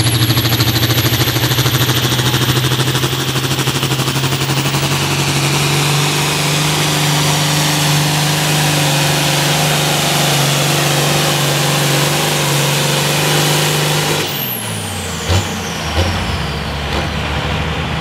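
Allis-Chalmers D21 farm tractor's diesel engine pulling a weight-transfer sled under full load, running hard and steady with a high whine climbing in pitch. About fourteen seconds in the engine is backed off: it drops to a lower, quieter run as the whine falls away, and two short thumps follow.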